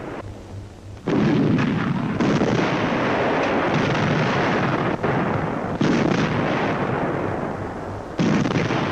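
Italian field artillery firing: several heavy reports, the first about a second in and others near the middle and end, each trailing off into a long rumble.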